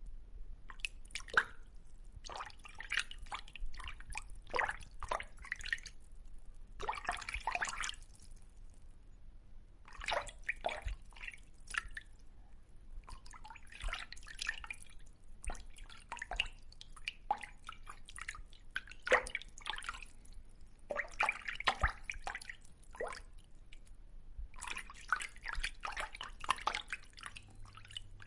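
Fish moving and splashing in water: irregular clusters of small wet plops and drips, with short pauses of about a second between clusters.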